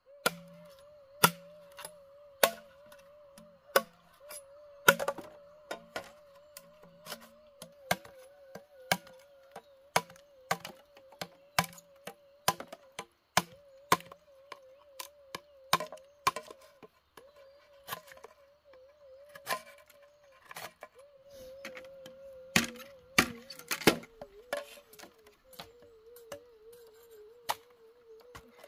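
Machete blade chopping and splitting green bamboo: a long irregular series of sharp strikes and cracks, roughly one every half second to second, some much louder than others.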